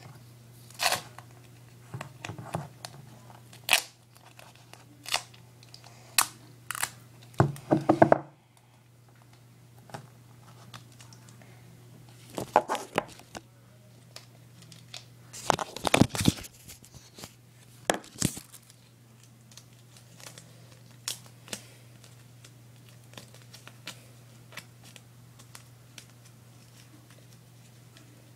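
Duct tape being torn and handled in a series of separate short rips, crinkles and clicks, the longest near the middle and about two-thirds through, over a steady low hum.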